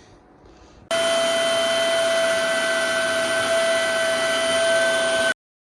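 Car lift's electric hydraulic pump running steadily with a whine, starting abruptly about a second in and cutting off suddenly near the end.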